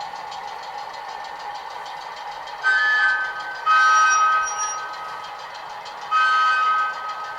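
Sound-fitted OO gauge model of the Bulleid 1Co-Co1 diesel 10202 playing its recorded diesel engine sound through a small onboard speaker, with the two-tone horn sounded three times, the middle blast the longest.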